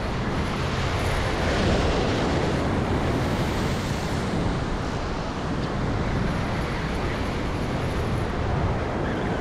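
Steady rushing of wind on the microphone mixed with surf washing and foaming against the jetty, heavy with low rumble.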